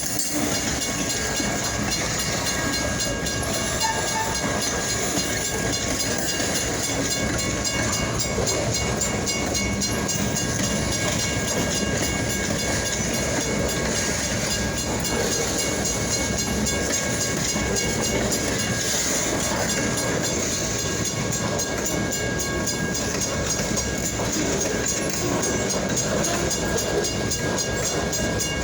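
Freight train rolling past, a steady, even noise of wheels on the rails with no change throughout.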